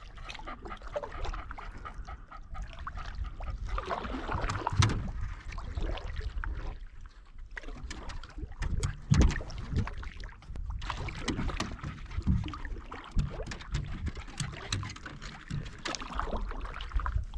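Canoe on the water: paddle strokes and splashes with irregular knocks against the hull, over a steady low rumble of wind on the microphone.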